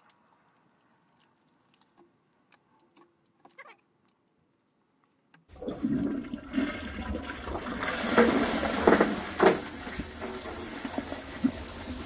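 A few faint ticks and plops as tea-light candles are dropped into the water of a toilet bowl. About halfway through, the toilet flushes suddenly: a loud rush of water swirling down the bowl with several stronger surges, settling into a steady rush of refilling water near the end.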